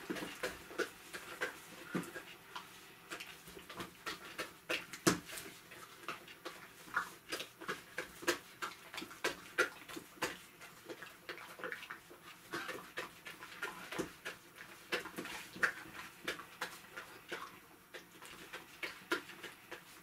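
A borzoi eating pieces of food off a small folding table: irregular smacking and chewing, many short sharp clicks a second apart or less, with no steady rhythm.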